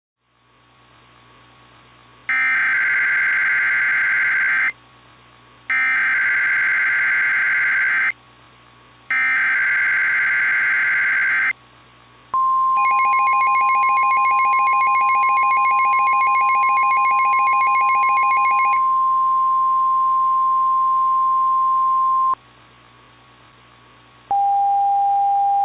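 Emergency Alert System tones: three identical bursts of screeching digital header data, each about two seconds long, then a steady alert tone held for about ten seconds, with a second, buzzier tone over its first six seconds. A short, lower beep comes near the end, over a faint steady hum.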